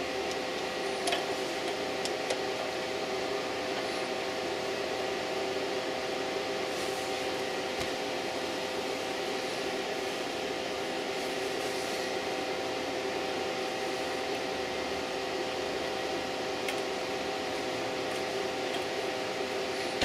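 Steady mechanical hum and hiss with a faint two-note whine, unchanging throughout, and a few faint clicks.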